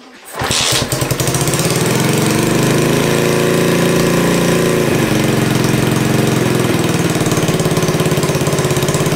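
Lifan 125 cc air-cooled single-cylinder four-stroke engine on a mini bike starting on its first start with a new 28 mm carburettor, then running loudly at a fast idle. Its pitch wavers and then steadies about five seconds in as the idle, which is a little too high, is set.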